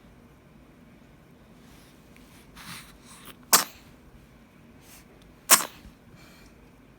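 A baby sneezing twice, about two seconds apart, each a sharp, short burst, with soft breathy intakes just before the first.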